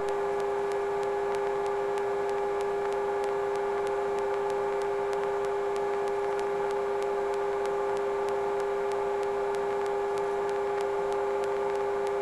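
Sikorsky S-58T helicopter in flight with its PT6T twin-turboshaft powerplant, carrying a heavy slung load: a steady drone made of several held tones, the lowest the strongest, with faint regular ticking.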